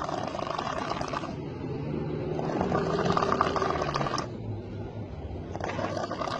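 A person snoring loudly, a rattling snore drawn out over a second or more and repeating about every two and a half seconds: one ends about a second in, another fills the middle, and a third starts near the end.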